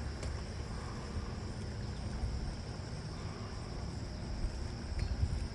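Wind buffeting the microphone in a rumbling low gusty noise, with a steady high insect drone above it.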